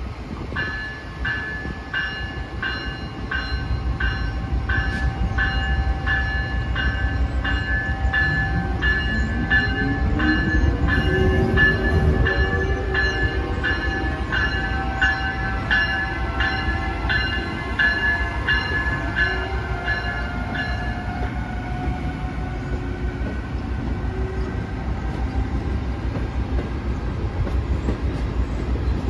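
Amtrak Siemens ACS-64 electric locomotive pulling out with its passenger cars: its bell rings about twice a second and stops about two-thirds of the way through, while a rising whine from the traction motors comes in as it gathers speed. Under it the wheels rumble and click over the rail joints as the cars roll past.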